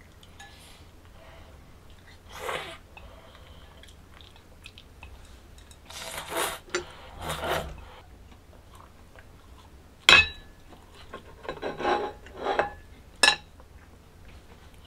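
Eating sounds at a table: chopsticks and metal tongs scraping and clinking against plates and bowls, with bursts of chewing, and one sharp click about ten seconds in.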